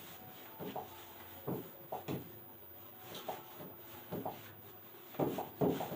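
Faint, irregular taps and short scratches of a pen writing on a board surface.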